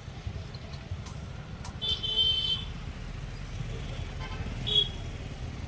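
Street traffic with vehicle horns: a honk lasting about half a second comes about two seconds in and a shorter one near the end, over a steady low rumble of engines.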